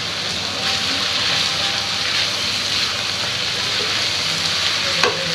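Boiled noodles, egg and vegetables sizzling steadily in hot oil in a frying pan, the hiss swelling a little about a second in. A single sharp tap near the end.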